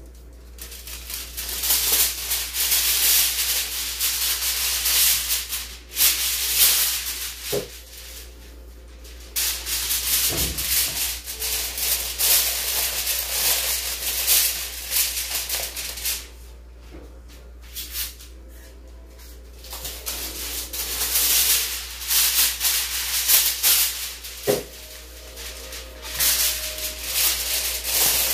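Aluminium foil crinkling and crumpling as it is pulled over a foil pan and pressed down around its rim, in several long stretches with short pauses between them.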